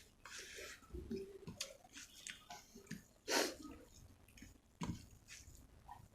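Close-up chewing of rice and chicken curry with gravy: wet squishing, smacking and small mouth clicks in an uneven rhythm, with one louder wet smack about halfway through.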